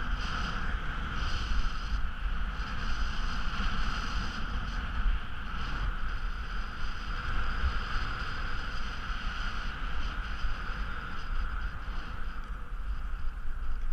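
Skis sliding over snow with a steady hiss, and wind rumbling on the microphone.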